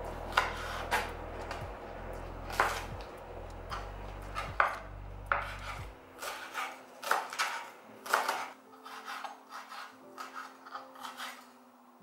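Chef's knife chopping green onions on a wooden cutting board: an irregular run of sharp knife strikes against the board, with quiet background music underneath.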